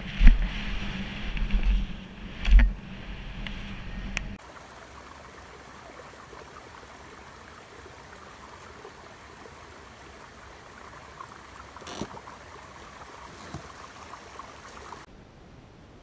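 Helmet-camera mountain-bike descent on a dirt trail: wind rushing over the microphone and the bike rattling over the ground, with two hard knocks about a quarter second and two and a half seconds in. About four seconds in, this cuts abruptly to a steady soft hiss with a single sharp click near twelve seconds, and that stops suddenly near the end.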